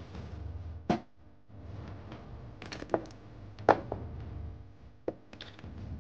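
Kitchen knife knocking on a cutting surface as strawberries are halved: a few sharp, short knocks spaced about a second apart, over a low steady hum.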